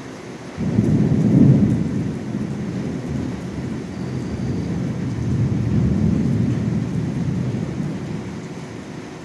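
Thunder: a sudden clap about half a second in, then a long rolling rumble that swells again midway and dies away near the end.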